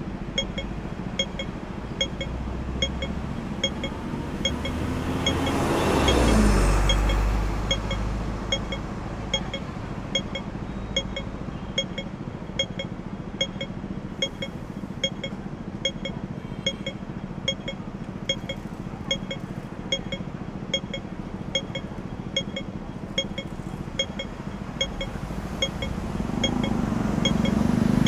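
Audible pedestrian crossing signal ticking steadily, about two short beeps a second, over steady street traffic. A vehicle passes close with a deep rumble about six seconds in, and another comes up loud near the end.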